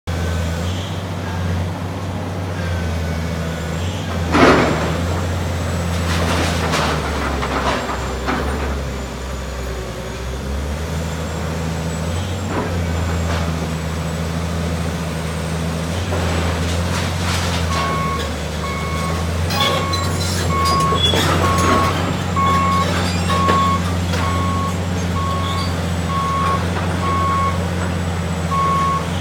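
Heavy diesel demolition machinery running steadily, with loud crashes of breaking and falling debris now and then. About two-thirds of the way through, a reversing alarm starts beeping about once a second and keeps on.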